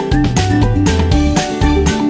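Background music with a steady, bouncy beat and a bright melody.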